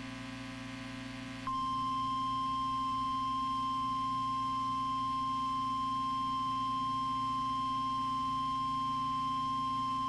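NOAA Weather Radio warning alarm tone, the 1050 Hz single steady tone that signals a warning broadcast, starting about one and a half seconds in over a constant receiver hum.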